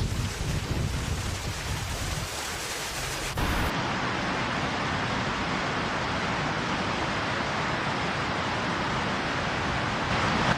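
Rushing floodwater, a steady rush of noise with no distinct tones. It changes abruptly about three and a half seconds in to a steadier, brighter rush.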